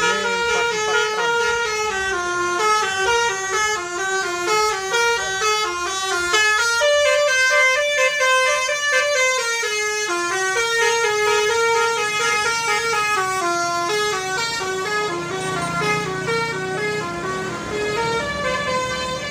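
Basuri melody horn on a tour bus playing a tune, stepping quickly from note to note, a few notes a second, with a run of longer held notes in the middle.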